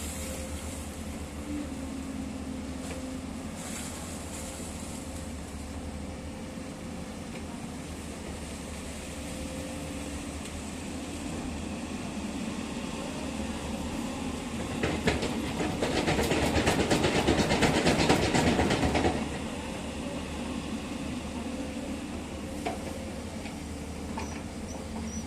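Excavator diesel engines running steadily, with a louder stretch of dense, rapid clattering about fifteen seconds in that lasts around four seconds.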